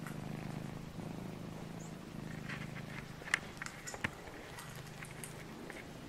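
Domestic tabby cat purring close up, in steady cycles of about one a second. A couple of sharp clicks and a few short high chirps come in near the middle.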